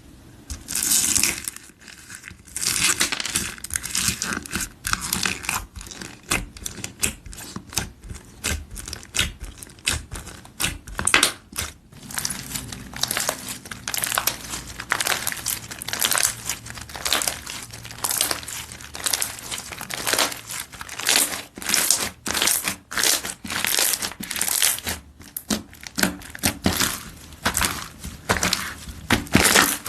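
Hands squeezing and kneading slime, giving a quick, irregular run of crackly squishes that fills the whole stretch, with a brief pause about 25 seconds in.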